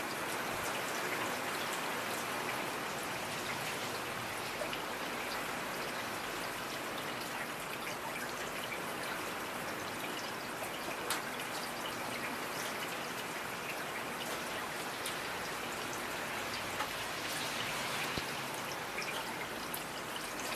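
Steady rain falling, with many individual drops ticking sharply through the even hiss.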